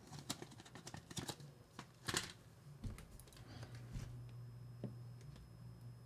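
Faint, scattered small clicks and rustles of hands handling a plastic zip-lock bag and sliding a plastic chafing tube onto heavy monofilament leader line, the loudest cluster about two seconds in.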